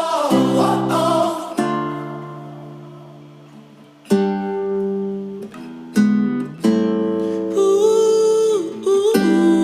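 A song with strummed acoustic guitar chords left to ring out and fade, and singing over the first second or so.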